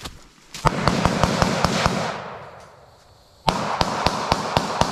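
Rapid suppressed rifle fire in two strings of quick shots, about seven a second, each string lasting roughly a second and a half. A pause of about a second and a half separates the strings, and each shot leaves a short echo trailing off in the woods.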